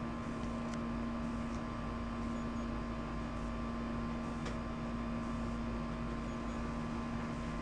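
Steady mechanical hum over a low even hiss, with a couple of faint ticks: room tone in the snake room.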